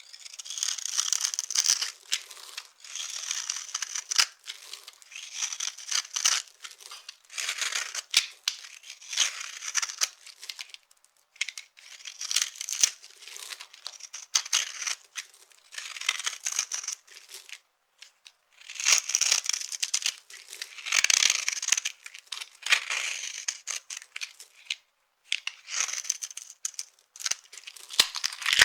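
Dry soap being crushed, giving crisp crackling crunches in repeated bursts every second or two, with brief pauses between.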